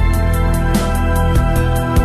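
Instrumental background music: held chords that change every second or so over a quick, steady pulse of light notes.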